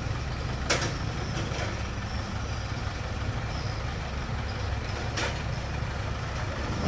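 Engine running steadily at idle, with two sharp knocks, one about a second in and one about five seconds in.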